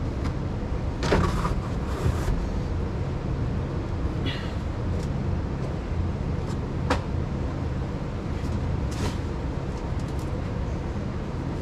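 New engine air filter element sliding and bumping into its air-cleaner housing, with a few scrapes and knocks and one sharp click about seven seconds in, over a steady low hum.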